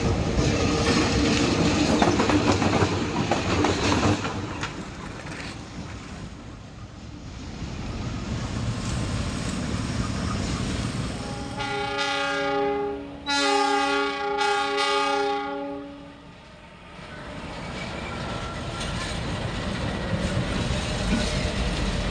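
A train running with wheels clattering on the rails, and around the middle a locomotive horn sounding several notes at once in two blasts, a short one then a longer one of about three seconds.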